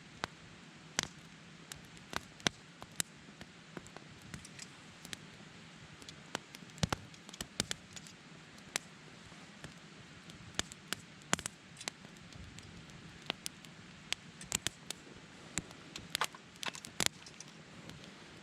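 Wood fire crackling: burning firewood giving irregular sharp pops and snaps over a soft steady hiss.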